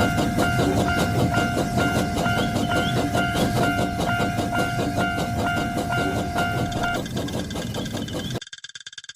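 Railroad-crossing sound effect: a train passing with rapid clickety-clack of wheels over rail joints, and the crossing's warning bell ringing in a steady beat of about two to three strokes a second. The bell stops about seven seconds in, and the train noise cuts off suddenly a little later, leaving only a faint pulsing tone.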